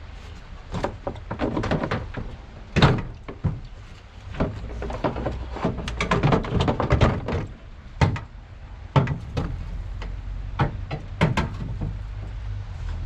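Irregular knocks, clunks and scraping as a truck radiator on a 2013 Chevy Silverado 2500HD is worked loose and pulled up out of the radiator support. The loudest thunk comes about three seconds in.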